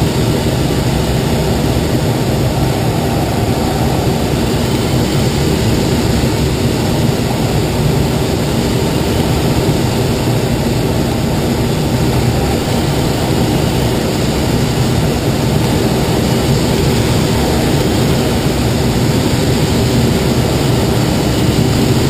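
Steady rush of air over a glider's canopy on aerotow, heard inside the cockpit, under the steady drone of the tow plane's engine ahead.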